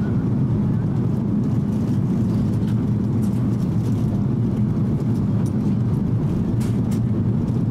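Cabin noise inside an Airbus A330-300 airliner in flight: a steady low drone from its Rolls-Royce Trent 700 engines and the airflow past the fuselage.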